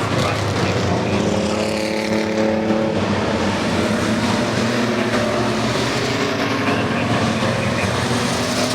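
Engines of several pickup trucks racing on a short oval track, running together at different pitches that shift as they pass.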